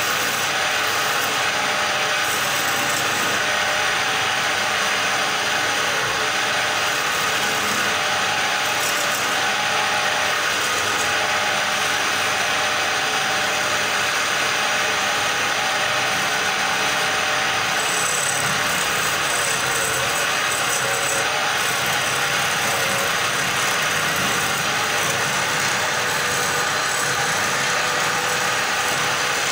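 Belt-driven wood lathe running, with a hand gouge cutting into the spinning wooden blank: a steady motor hum and scraping of the chisel on the wood.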